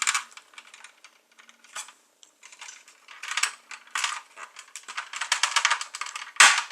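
Hard plastic parts of a 1983 G.I. Joe Skystriker toy jet clicking and rattling as they are handled and pushed to refit a loose tail piece, in quick clusters of clicks with a sharper knock near the end.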